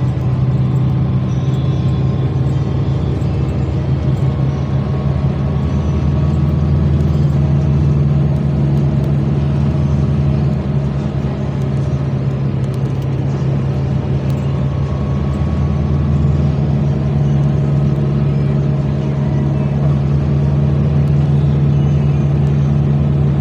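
Motor vehicle travelling at a steady speed: a continuous low engine drone with road noise.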